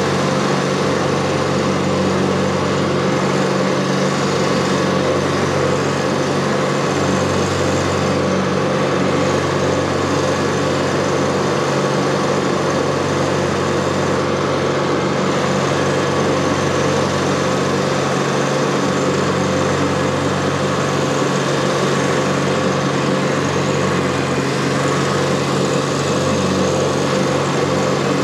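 TYM T264 compact tractor's diesel engine running steadily at working speed, driving a finish mower through the PTO as it cuts tall grass, with the mower's spinning blades whirring under the engine note.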